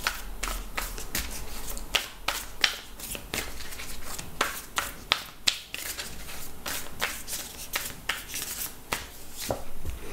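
Tarot deck shuffled by hand: a run of sharp, irregular card snaps and slaps, several a second.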